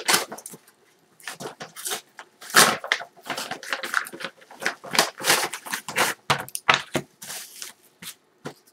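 A mailed parcel's paper packaging being torn open and unwrapped by hand: a run of irregular rips and crinkling rustles.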